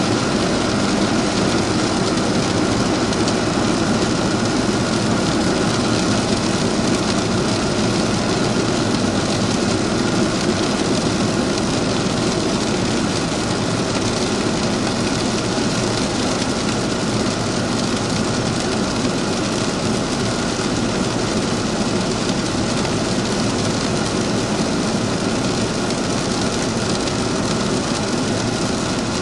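Steady drone of a Cessna P210 Silver Eagle's turboprop engine and propeller, mixed with airflow noise, heard from inside the cockpit in flight.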